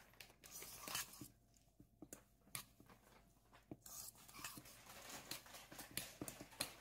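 Spoon stirring a chopped croquette filling in a stainless steel bowl: faint, irregular scraping and clicking of metal on the bowl as the moist mix is turned over.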